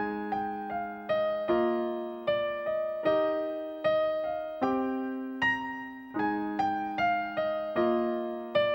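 Solo piano playing a slow melody over chords, about two or three notes a second, each note left to ring and fade.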